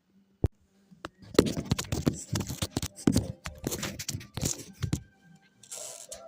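Scraping and tearing in quick irregular bursts with sharp clicks, starting about a second in and lasting about four seconds: hands working on materials or packaging. Music with steady tones comes in near the end.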